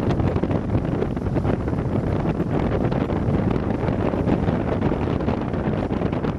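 Strong wind buffeting the camera's microphone: a loud, steady, gusty rumble.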